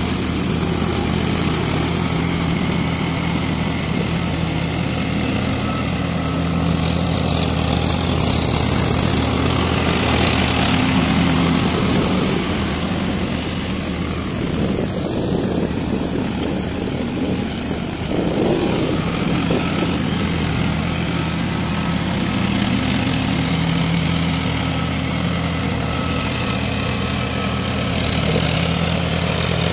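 Farm tractor's diesel engine running steadily under load as it pulls a rotavator through a flooded rice paddy, puddling the mud. A low, even engine hum with a hiss above it that swells and fades a little as the tractor moves.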